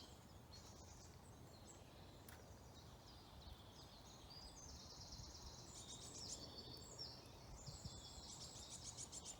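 Faint songbirds singing: high chirps and quick trills repeated throughout, busier in the second half, over a faint low rumble.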